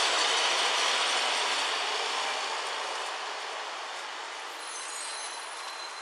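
A large truck driving past on the street, a steady rushing noise that is loudest at first and fades as it moves away.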